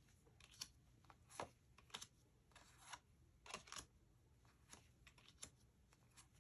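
Faint, irregular soft clicks and light brushing of tarot cards being handled and flipped through, roughly two a second.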